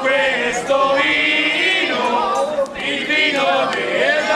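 Several voices singing a verse together, holding long notes, with brief breaks for breath about two seconds in and again near the end.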